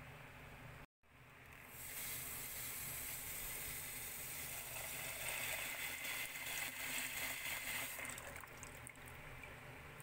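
A stream of water splashing into a pot of dried mung beans, filling it. It starts about a second in, runs steadily, and eases off near the end, leaving the water sloshing among the beans.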